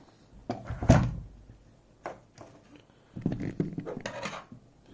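Clicks and knocks of a FAB Dynamic slider lock and metal picking tools being handled: a sharp knock about a second in, then a quick run of clattering clicks near the end.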